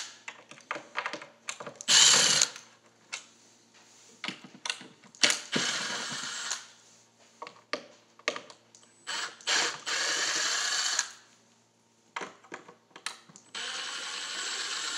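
Milwaukee cordless driver running in four short bursts, backing screws out of a wooden enclosure, with clicks and knocks of the screws and tool being handled between bursts.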